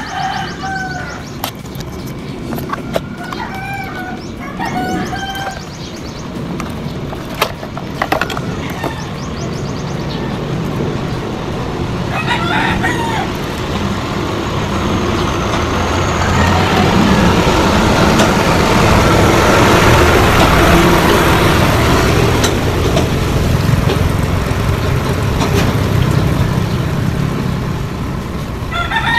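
A rooster crowing a few times, with a few light clicks. A loud rushing noise swells in the middle and eases off toward the end.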